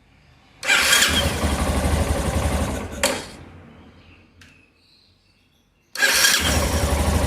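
Yamaha Ténéré 250's single-cylinder engine started on its electric starter twice, about a second in and again near six seconds, each time running briefly; the first run ends near three seconds with a sharp click from the starter motor. The starter clicks at start-up and more loudly at shut-off, a fault the owner traced to a magnet come loose in the starter motor housing.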